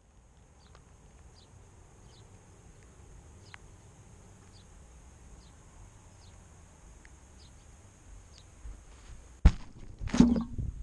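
Faint outdoor quiet with soft, regular ticks about every half second; then, about nine and a half seconds in, a sharp knock followed by rustling and knocking as the crashed quadcopter's GoPro is picked up out of the grass.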